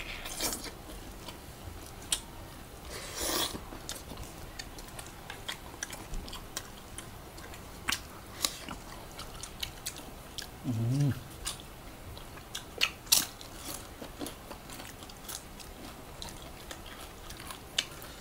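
Close-up eating sounds of chicken adobo eaten by hand: biting and chewing chicken, with many sharp mouth clicks and smacks. About eleven seconds in, a short low hum, like an "mm" of enjoyment.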